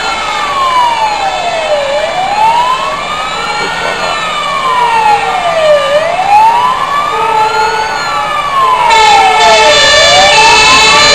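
Fire engine sirens: one wails slowly up and down, about one rise and fall every four seconds, over other steady siren tones. The sirens get louder near the end.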